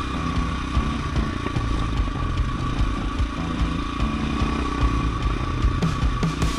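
Off-road motorcycle engine running as the bike is ridden along, with frequent short knocks and rattles.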